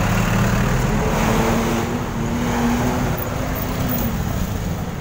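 Road traffic passing close by, vehicle engines running, with one engine's hum holding steady for a few seconds in the middle.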